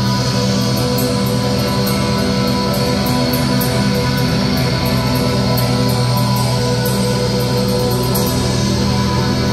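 A black metal band playing live and loud through a PA: electric guitars hold sustained notes over a steady droning sound with no break.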